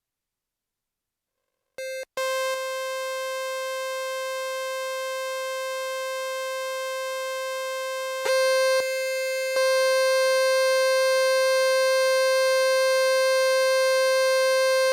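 Qun mk2 synthesizer sounding a sustained electronic drone: one held note near 500 Hz, bright with many overtones. It starts about two seconds in after a short blip, then grows louder with a shift in tone colour about eight and nine and a half seconds in as its parameters are adjusted.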